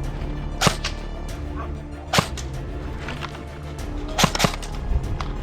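Airsoft gun firing single shots, each a sharp crack: one, another about a second and a half later, then two in quick succession about four seconds in.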